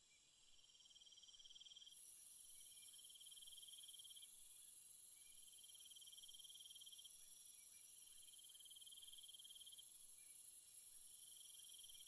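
Faint insect chorus: a high pulsing trill repeated every couple of seconds in phrases a second or two long, with a steady, even higher insect hiss joining about two seconds in.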